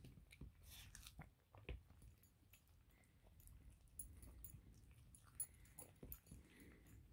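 A cat chewing on a piece of breaded chicken: faint, irregular clicks and smacks of chewing.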